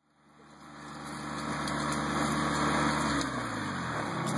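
Small tractor engine running as it pulls a drag harrow over dry vineyard soil. It fades in over the first second, and its pitch drops a little past three seconds in as it slows, then settles steadily at the lower speed.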